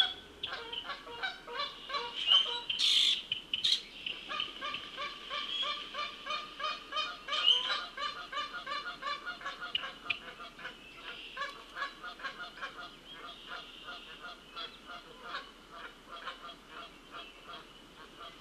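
Geese honking, many calls in quick succession, thinning out and growing fainter over the last several seconds. Under them runs a steady high-pitched background chorus.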